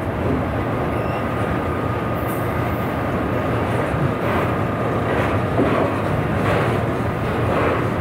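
A train going by: a steady rumble with a faint steady whine, and from about halfway a pulsing noise that repeats roughly once a second.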